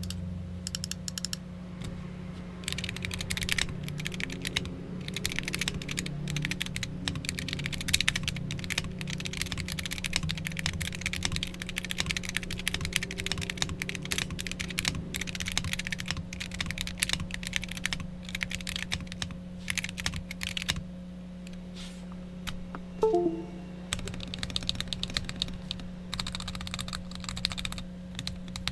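Typing on a Wooting 60HE hall-effect keyboard with lubed and filmed Lekker L60 switches, POM plate in a Geonworks Frog Mini case, PBT keycaps and no foam: a fast, continuous clatter of keystrokes that thins out briefly about three-quarters of the way through. A low steady hum sits underneath.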